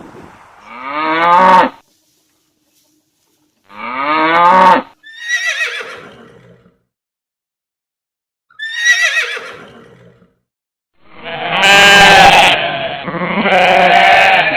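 Farm animals calling: several separate pitched calls, each about a second long, most gliding down in pitch, with silent gaps between them. A longer, louder run of calls follows from about eleven seconds in.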